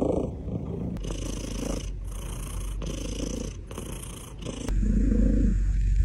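Domestic cat purring, the rumble swelling and fading with each breath about once a second, breaking off and resuming abruptly twice.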